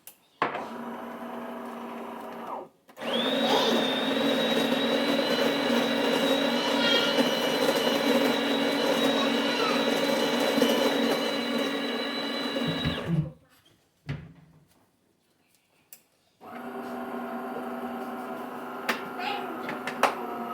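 Home coffee machine running with a steady motor or pump hum in three runs: a short one of about two seconds, a louder run of about ten seconds, then another that starts a few seconds before the end. Each run cuts in and out abruptly.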